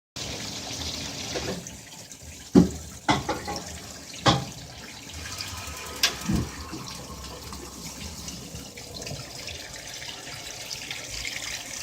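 Washing machine with water running in, a steady hiss, with a few sharp knocks, four of them between about two and a half and six seconds in.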